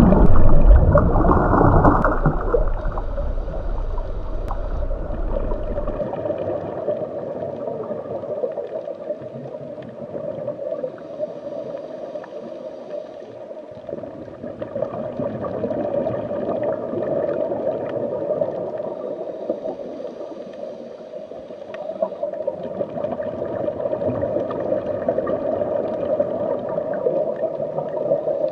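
Underwater ambience sound effect: a muffled, gurgling water drone that swells and eases slowly. It opens with a louder rush of water with a deep rumble that fades after a few seconds.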